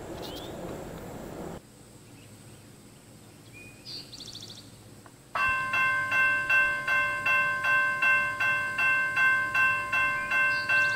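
Railroad crossing bell starting abruptly about halfway through and ringing in loud, evenly paced strokes: the crossing signals have activated for an approaching train.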